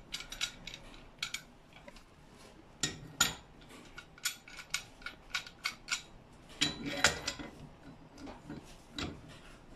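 Steel adjustable wrenches clinking and clicking against the metal of an ultrasonic transducer and horn as a wrench is set in place and its jaw adjusted. The sharp metal clicks come at irregular moments, and the loudest are about three and seven seconds in.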